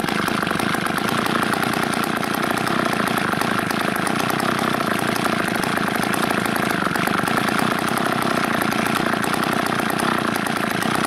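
Two-stroke chainsaw engine running steadily on wood gas fed from a wood gasifier, with its air-fuel mixture being set by a ball valve.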